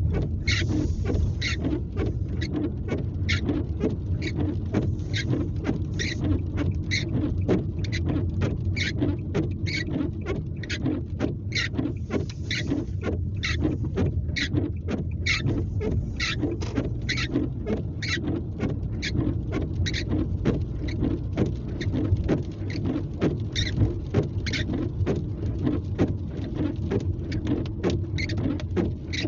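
Inside a moving car's cabin, rain pattering on the roof and windshield in many short, irregular taps over a steady low hum of engine and tyres on a wet road.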